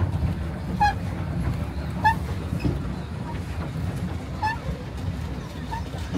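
An animal's short pitched calls, four of them spaced a second or more apart, each dipping slightly in pitch, over a steady low rumble.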